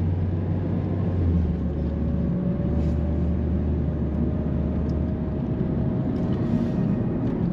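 Steady low rumble of a car's engine and tyres heard from inside the cabin while driving, with a faint whine that slowly rises in pitch through the middle.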